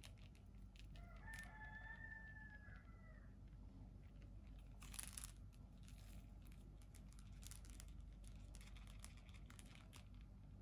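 Faint clicks and crackles of a kitten batting and grabbing a dangling plastic butterfly toy. About a second in comes a single long call held at one pitch for about two seconds.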